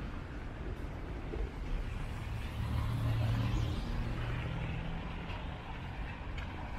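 Cars driving along a wet, slushy city street: a low engine hum that swells around the middle as a car draws near, over the steady wash of tyres on the wet road.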